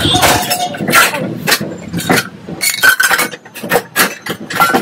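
Old kitchen vessels being handled and piled up, clinking and clattering in a run of sharp knocks, a few of them ringing briefly.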